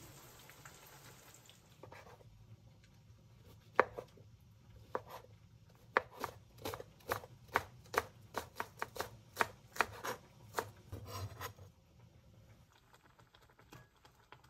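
Knife chopping food on a cutting board: a run of sharp, regular chops starting about four seconds in, about two to three a second, stopping near the end.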